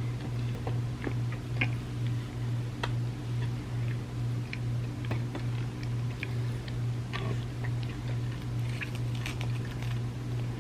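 Close-miked chewing of soft cookie and chocolate wafer, heard as scattered small wet mouth clicks and smacks over a steady low hum.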